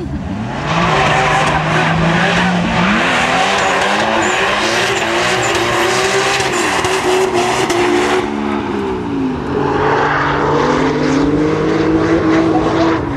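Two drift cars' engines revving hard, pitch rising and falling, with tyres squealing and spinning as the cars slide side by side in clouds of tyre smoke. It builds about a second in, eases briefly around two-thirds of the way through, then picks up again.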